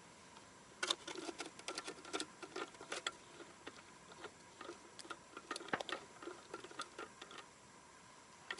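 Irregular small clicks and ticks of ice-fishing tackle being handled while a tip-up is rigged and baited. The clicks come thick from about a second in, then thin out.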